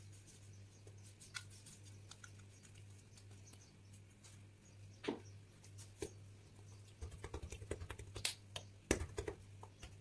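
Fingers patting a semolina-coated ball of semolina bread dough (matlouh) flat on a marble countertop. There is a single soft thud about five seconds in, then a quick run of soft pats from about seven seconds in.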